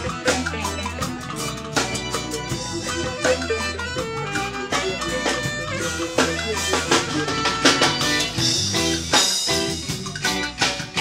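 Live band playing amplified in a small room: a drum kit keeps a steady beat under long, deep bass notes and higher instrument lines.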